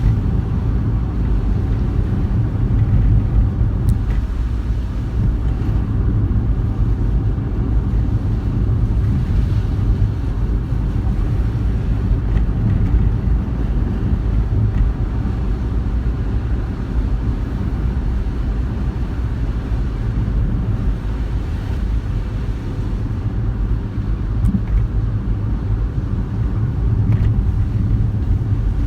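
Car driving along a road, heard from inside the cabin through a dashcam microphone: a steady low rumble of tyres and engine.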